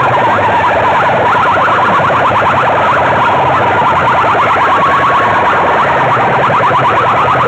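Sound-system horn loudspeakers blaring an electronic siren-like warble at full volume, a fast sweeping tone repeating many times a second without a break.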